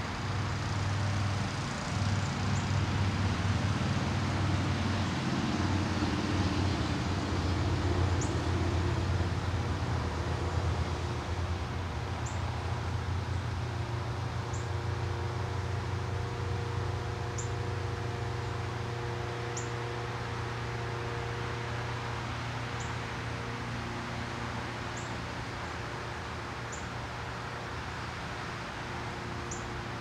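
A motor vehicle's low engine drone, swelling about a third of the way in and then slowly fading. Over it, a small bird gives brief, high, thin chirps every couple of seconds.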